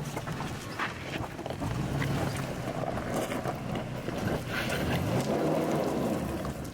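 A four-wheel-drive vehicle's engine labouring as it crawls over a rough, obstacle-strewn trail, its low drone rising and falling, with scattered knocks and rattles from the bumps.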